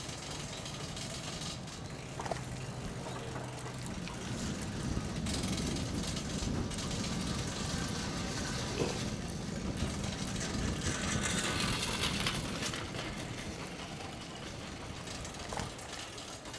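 Riding a bicycle: tyres rolling on pavement and the bike rattling, with wind on the microphone. A steady low engine hum fades out within the first few seconds.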